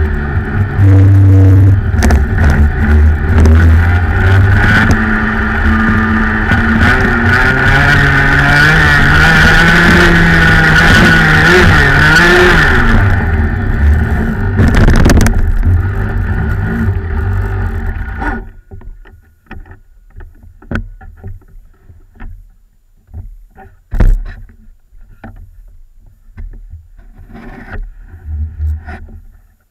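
Rotax Max 125 cc two-stroke kart engine running hard on track, its note climbing and falling with the throttle, then dying abruptly about 18 seconds in as the kart ends up stopped on the grass after a spin. Afterwards only scattered faint knocks and rustles remain, with one sharp knock a few seconds later.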